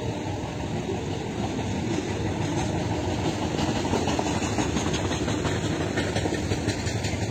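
A vehicle running with a steady, dense low noise that grows a little louder after about two seconds.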